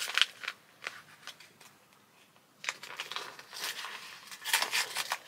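Packaging crinkling and rustling as it is handled. There are a few small clicks at first and a short near-silent pause, then steadier rustling from about halfway.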